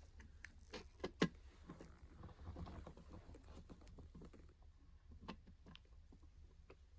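Faint scattered clicks and soft rustling of handling, the sharpest click a little over a second in, over a low steady hum.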